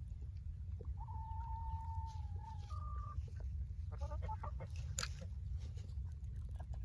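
Backyard chickens calling and clucking: about a second in, one long drawn-out call that steps up in pitch near its end, then a quick run of short clucks and a single sharp click.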